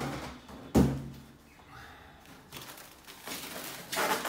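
A single loud thump about a second in as the emptied cardboard box is set down. Near the end, foam packing blocks squeak and rub as the top block is lifted off the miner.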